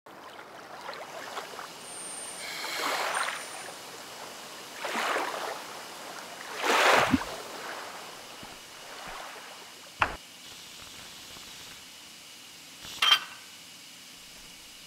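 Water sound effects: a steady wash with three swells of splashing water, the third the loudest. About ten seconds in comes a single sharp knock, and near the end a sharp clink.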